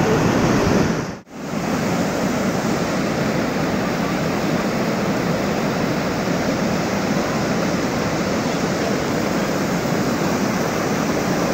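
Muddy flash-flood water, swollen by a cloudburst, rushing over rocks and debris in a steady, loud torrent. It cuts out for a split second about a second in, then carries on unchanged.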